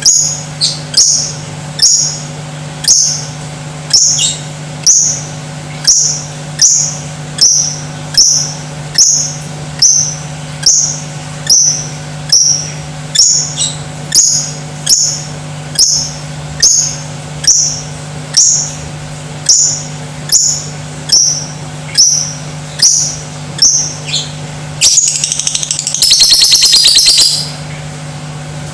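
Lovebird calling: a loud, sharp, high call repeated about once a second. Near the end it breaks into a rapid chattering trill of about two seconds. A steady low hum runs underneath.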